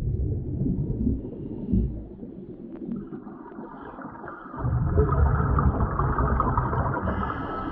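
Exhaust bubbles rumbling out of a late-1950s US Divers DA Aquamaster double-hose scuba regulator as the diver breathes underwater. One exhalation fades out about a second in, and after a quieter gap a second, longer exhalation starts a little past halfway and runs almost to the end.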